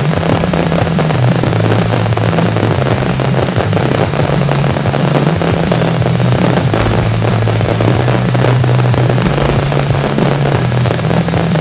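Fireworks barrage from a starmine display: dense, continuous crackling and popping of many shells going off in quick succession, with a steady low hum underneath.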